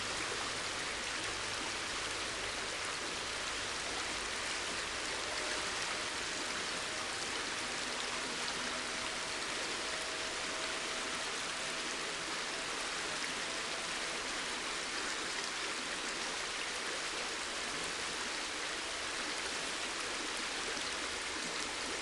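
River water flowing steadily, an even hiss with no breaks.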